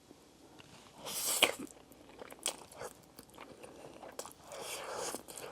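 Close-up eating sounds of a mouthful of Buldak tomato pasta instant noodles being chewed, with short wet mouth clicks and a louder mouthful about a second in and again near the end.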